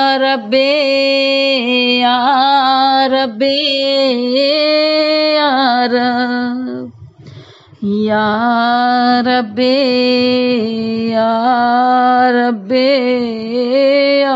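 A woman's voice chanting a devotional recitation in long held, wavering notes with ornamented turns. The chant breaks off about seven seconds in, and a second phrase starts about a second later.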